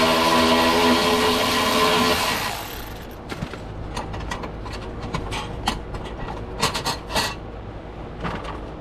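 A power tool's motor runs steadily at one pitch for about two and a half seconds, then stops, most likely driving out the belly-pan fasteners. Scattered clicks and knocks follow as parts and tools are handled.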